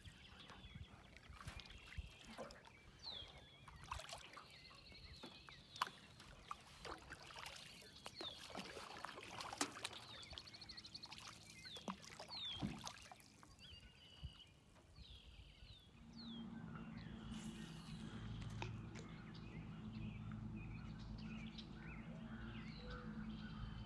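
Faint marsh ambience from a canoe on calm water: repeated short, falling bird chirps, with small clicks and trickles of water around the hull. About two-thirds of the way through, a steady low hum comes in.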